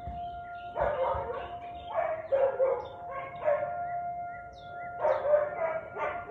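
Siberian husky barking in irregular bursts of two or three quick barks, about one burst every second or so.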